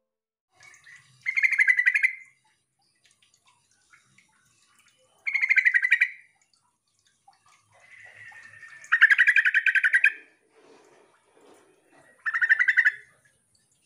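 Yellow-vented bulbul (trucuk) calling: four short bursts of rapid chattering notes, about one every three to four seconds. This is its call to other birds, used to coax other bulbuls into calling back.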